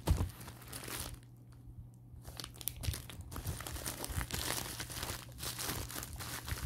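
Plastic packaging crinkling as it is handled: a grey plastic mailer bag and bubble wrap rustling and crackling. A short knock right at the start, a brief lull about a second in, then steady crinkling for the rest.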